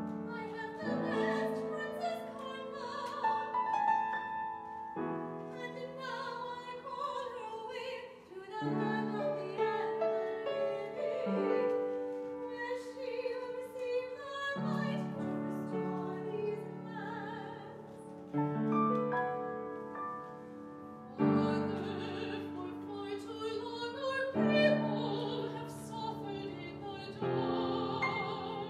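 Operatic singing with wide vibrato, accompanied by piano, in a chamber opera.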